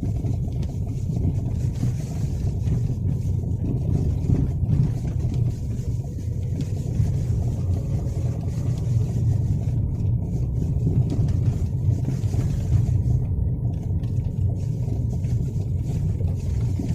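2024 Lada Vesta SW Cross on the move: a steady low rumble from the road and running gear, with a few light knocks from the suspension, the first suspension knocks its owner has noticed in the car.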